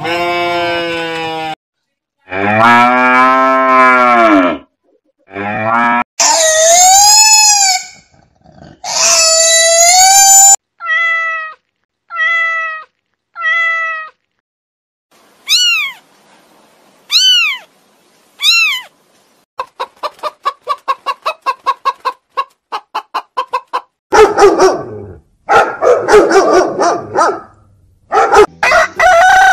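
A string of different animals' calls one after another, each a second or two long with short gaps. There are long drawn-out calls, then three short calls, three high arching calls, a rapid run of about eight pulses a second, and harsher, rougher calls near the end.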